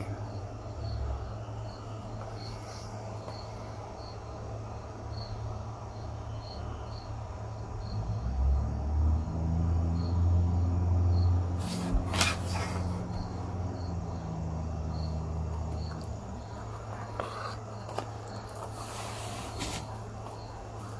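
Crickets chirping in a steady regular rhythm, about two chirps a second, over a low steady hum. A louder low rumble swells from about eight seconds in and fades away about eight seconds later, with a sharp click in the middle of it.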